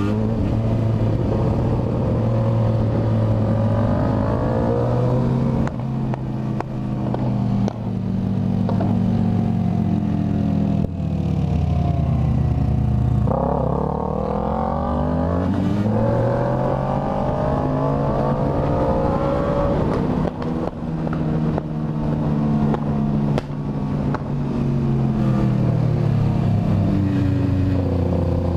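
Motorcycle engine running under way, revs climbing and dropping back again and again as it accelerates and changes gear. The revs fall away about twelve seconds in, then climb again as it pulls off.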